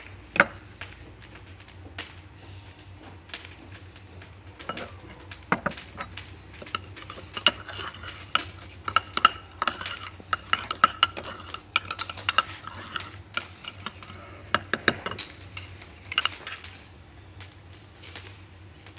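Metal spoon stirring in a small clay bowl, clinking rapidly against its sides. The clinks are densest and loudest in the middle stretch, with scattered single knocks before and after.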